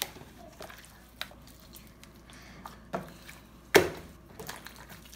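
Hands kneading a large mixed lump of glitter slime and noise putty, giving scattered short sharp pops and squelches; the loudest comes a little under four seconds in.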